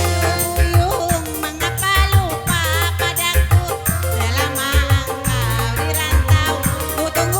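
Organ tunggal (single-keyboard band) music: an electronic keyboard plays a wavering melody over sustained bass notes and a fast, regular shaker-like beat.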